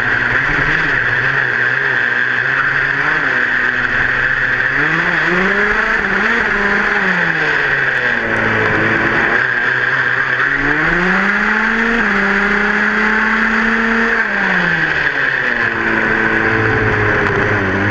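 Small two-stroke engine of a 1/5-scale gas RC buggy (HPI Baja 5B) running as it drives, its pitch repeatedly climbing and falling back with the throttle. It holds a high pitch for a few seconds past the middle before easing off. A steady hiss runs beneath it.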